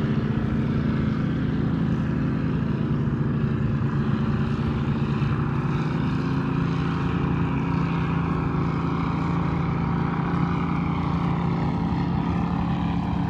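Powerboat engines running steadily at speed, heard from on board the moving boat, with a constant rush of water and wind under the engine tone.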